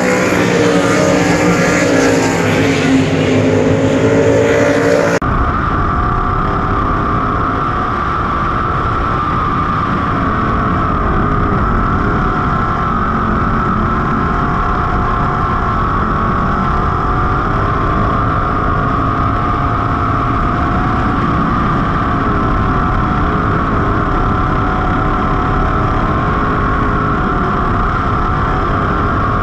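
Sprint car engines running on a dirt oval, their pitch rising and falling as the cars circle. About five seconds in the sound cuts to an onboard recording of a 305 sprint car's small-block V8, running at a fairly steady pitch over a heavy low rumble.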